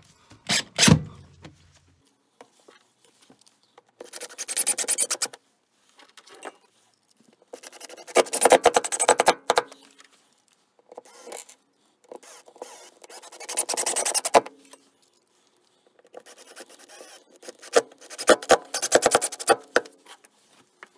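A cordless drill briefly drives a screw through the floor plate into the van's metal floor in the first second. Then come four scratchy brushing strokes across the vinyl floor, each a second or two long.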